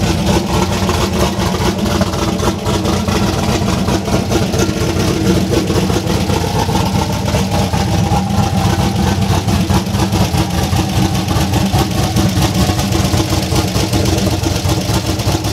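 Turbocharged V8 truck engine idling steadily, loud and even throughout.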